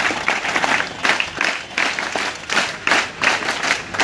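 A large crowd clapping, many hands at once, the claps coming in repeated louder pulses.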